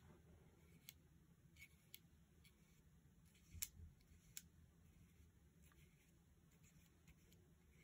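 Near silence: a paintbrush making short strokes on paper, heard as a handful of faint, soft ticks, the clearest about three and a half seconds in.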